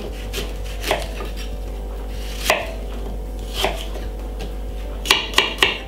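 Kitchen knife cutting a peeled green apple into pieces on a wooden chopping board: three spaced knocks of the blade hitting the board, then a quick run of several cuts near the end.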